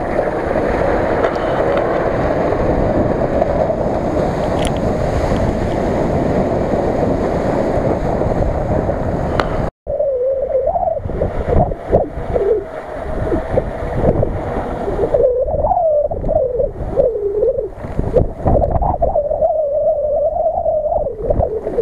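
Off-road vehicle driving on a dirt track, heard from a camera mounted on its front bumper: a dense, steady roar of wind and driving noise. After a sudden cut about halfway through, a wavering tone that bends up and down runs under scattered splashes while an SUV fords shallow water.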